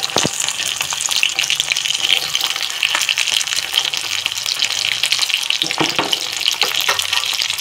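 Minced-meat kebabs shallow-frying in hot oil in a kadhai on a low flame, a steady crackling sizzle, broken by a few sharp knocks of the metal spatula against the pan.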